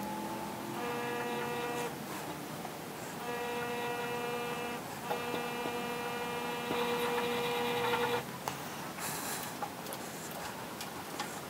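Bead roller running in three short bursts of a steady, even-pitched whine as steel exhaust tubing is fed through its rolling dies. The longest run lasts about three seconds.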